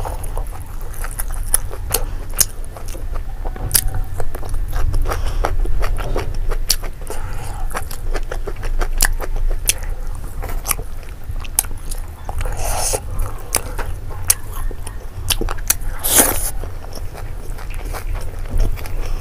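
Close-miked eating sounds of someone chewing food by hand: wet mouth clicks and smacks throughout, with two louder crunchy bites, one about two-thirds of the way in and a stronger one a few seconds later.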